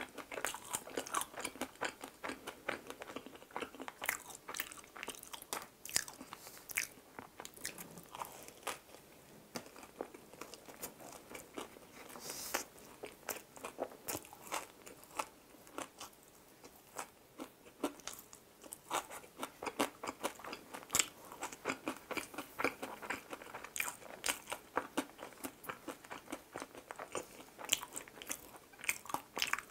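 Close-up biting and chewing of a chocolate-coated ring doughnut with a crunchy rice-crisp topping: a steady run of small crisp crunches and chewing clicks, with one louder crunch about twelve seconds in.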